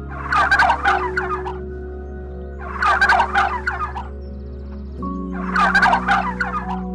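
Gobbling bird calls like a turkey's: three rapid, rattling bursts, each about a second and a half long, coming about every two and a half seconds.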